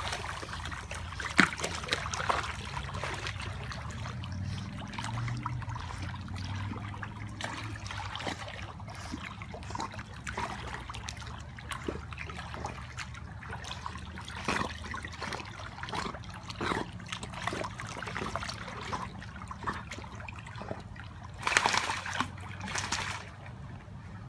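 Pool water lapping and trickling as an English pointer paddles across a swimming pool, with small splashes throughout and a couple of louder splashes near the end.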